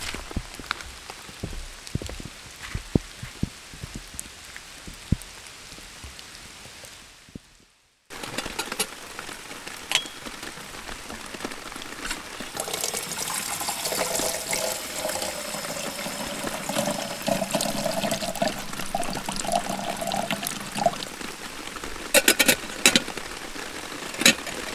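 Rain falling with scattered drips, then, after a short break, tap water running and pouring into a stainless steel kettle. Near the end a few sharp metallic clinks as the kettle's wire handle and lid are handled.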